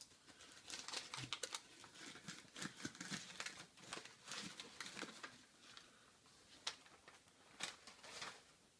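Packing material crinkling and rustling in irregular crackles as a can is unwrapped from a parcel.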